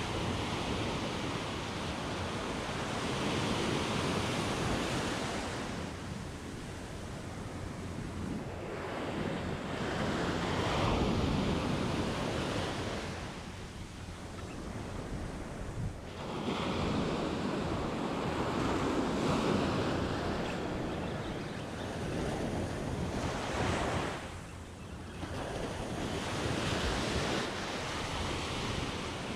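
Small ocean waves breaking and washing up a sandy beach, the rush of surf swelling and ebbing every few seconds, with wind rumbling on the microphone.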